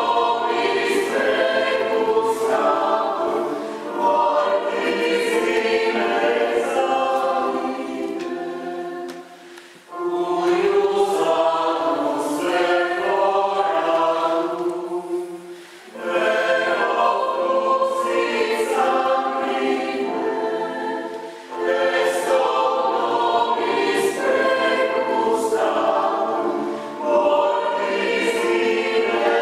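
Mixed choir of women's and men's voices singing unaccompanied in long phrases, with short breaks between phrases about 10, 16 and 21 seconds in.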